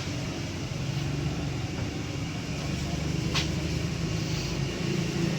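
Steady low mechanical rumble, with one short sharp click about three and a half seconds in.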